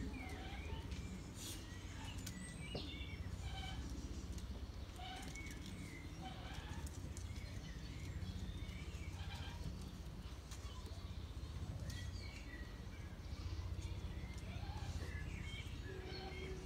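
Outdoor ambience of scattered short bird chirps over a steady low rumble of background noise.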